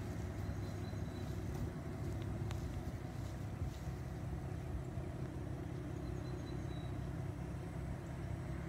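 Ford Mustang engine idling steadily at low rumble through its dual exhaust, with no revving.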